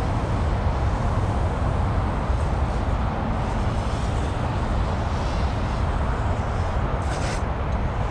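5-inch FPV racing quadcopter with Foxeer Datura 2206 2700 kV brushless motors in flight. A heavy rush of wind noise dominates, with the motors' high whine rising and falling as the throttle changes.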